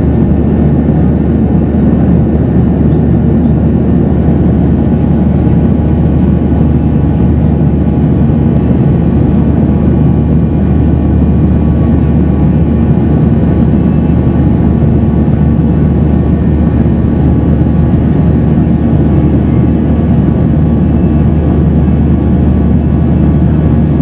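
Steady cabin noise inside a Boeing 737-800 climbing out after takeoff: its CFM56-7B turbofan engines at climb power, a loud even low rumble with faint steady tones above it.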